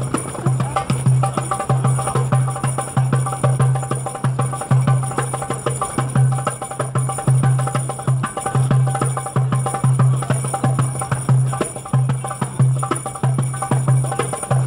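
Background music with a steady bass beat and light percussion.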